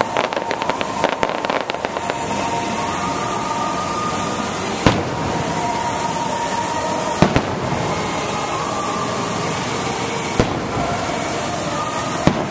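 Aerial fireworks shells exploding: a rapid crackle of many small pops in the first couple of seconds, then about five single sharp bangs a few seconds apart, two of them nearly together.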